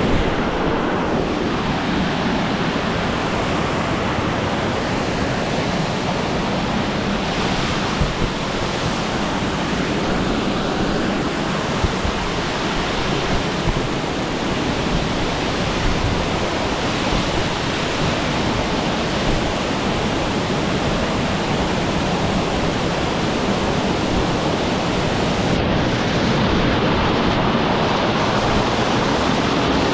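Waterfall on the Gooseberry River pouring onto rock close by: a loud, steady rush of falling water. Near the end the sharpest hiss drops away, leaving the roar duller.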